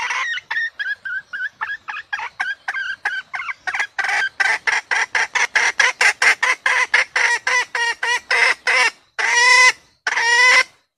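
Red junglefowl hen clucking: a run of short clucks that quickens to about four a second and grows louder, then two longer, louder cackling calls near the end.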